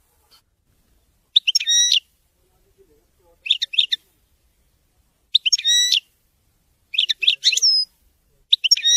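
European goldfinch singing: five short, high twittering phrases, each under a second long, with pauses of a second or so between them.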